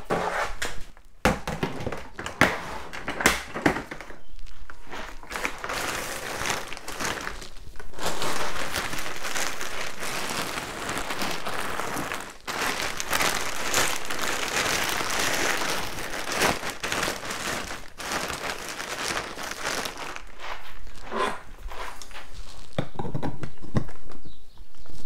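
Plastic wrapping rustling and crinkling as red plastic-bagged boiler insulation jackets are stuffed around a plastic fermenting bucket in a wooden box. A few sharp knocks come in the first few seconds.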